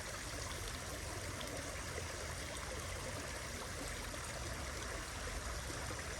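Small creek water running and rippling over a shallow fast stretch, a steady rush.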